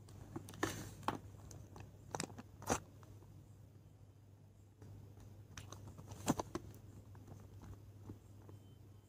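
Hands handling a plastic GoPro mount against a motorcycle helmet's shell: scattered clicks, taps and rustles, the sharpest about a second in, near three seconds and after six seconds, over a steady low hum.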